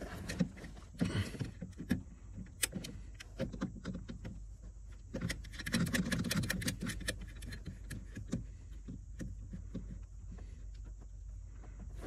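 Small nuts threaded by hand onto the accelerator pedal's mounting studs: scattered light metallic clicks and clinks with some handling and rustling.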